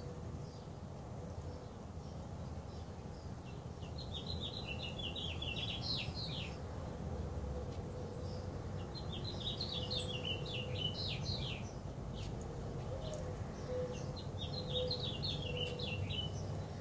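A songbird singing three quick runs of chirping notes, each lasting two to three seconds and coming about every five seconds, over a steady low rumble.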